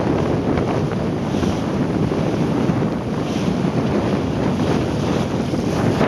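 Loud, steady wind noise on the microphone in a strong wind of 10-12 m/s, over the rush of water along a small sailboat's hull.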